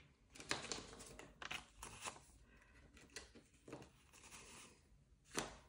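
Paper banknotes rustling as they are handled and sorted by hand: a string of short, faint crinkles and flicks, the loudest a little past five seconds in.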